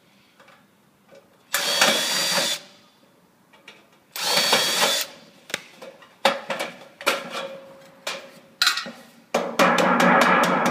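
Cordless drill run in two short bursts of about a second each against a metal quad gutter, followed by scattered knocks and then a loud rattling clatter near the end as the sheet-metal gutter is handled and turned over.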